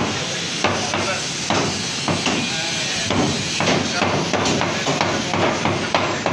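Heavy meat cleaver chopping mutton on a wooden log chopping block: a series of sharp chops at an irregular pace, roughly one or two a second.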